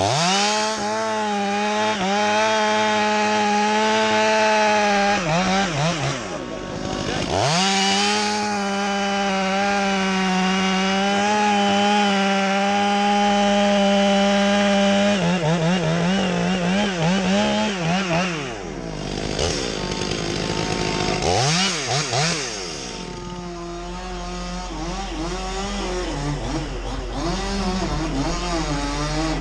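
Chainsaw engine held at high revs in two long stretches, dipping and picking up again about six seconds in, then revving up and down unevenly through the second half.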